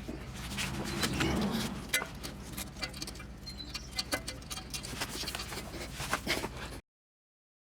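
Tools and parts being handled: irregular light clicks and rattles over a low hum, cutting off abruptly near the end.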